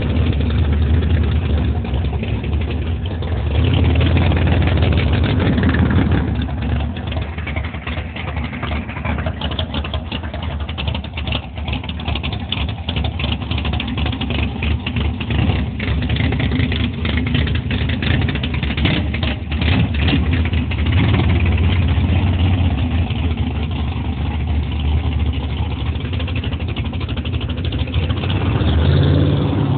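A 1968 Chevelle's V8 engine idling steadily, running a little louder for a couple of seconds about four seconds in and again near the end.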